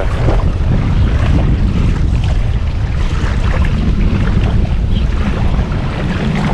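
Strong wind buffeting the microphone in a windstorm: a loud, steady low rumble.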